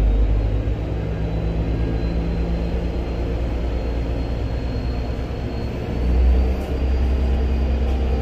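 Mercedes-Benz M904 four-cylinder turbo-diesel running steadily, driving an Allison 2000-series automatic transmission with the drive wheels lifted off the ground during a shift-adapt test run. A faint high whine climbs slowly in pitch throughout, and the low engine sound swells briefly about six seconds in.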